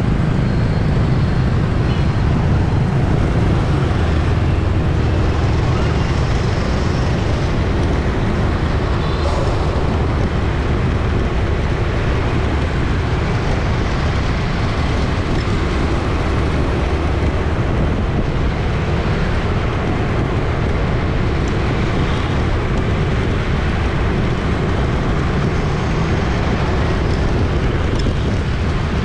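Street traffic ambience: a steady, unbroken rumble of passing motor vehicles.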